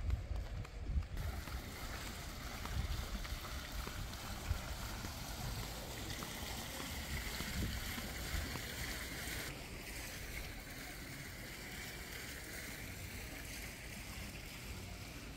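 Wind buffeting the microphone outdoors: a fluttering low rumble under a soft, even hiss. The higher hiss drops away about nine seconds in.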